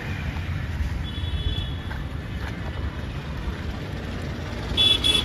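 Busy road traffic with a steady low rumble, a faint high horn about a second in, and a short loud vehicle horn honk near the end.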